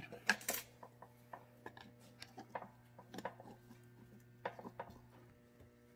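Scattered light taps and clicks of metal parts as a new U-joint bearing cap is worked into a driveshaft yoke. A faint steady hum runs underneath and stops about five seconds in.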